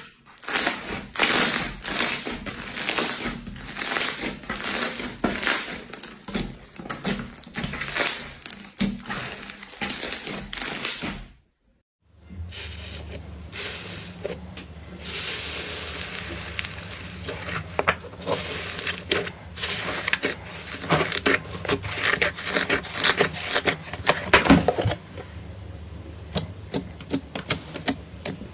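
Slime being squeezed, poked and pressed by hand, a rapid run of small sticky crackles and clicks. It cuts out for a moment about twelve seconds in, then the same kind of crackling goes on over a steady low hum.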